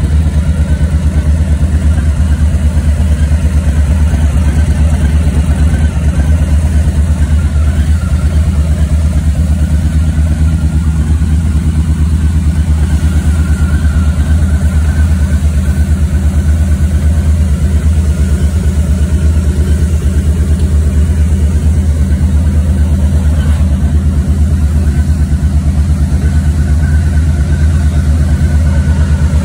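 Harley-Davidson Low Rider S's Milwaukee-Eight 114 V-twin running at a steady idle, a low, even pulsing note that holds without revving.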